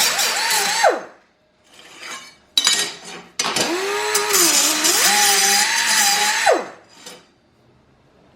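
SP Air SP-7231 flex-head 3-inch pneumatic cut-off tool running with a high whine over hissing, released about a second in and spinning down. After a couple of short blips it runs again for about three seconds, its pitch dipping in the middle as the wheel is loaded in the cut, then winds down again.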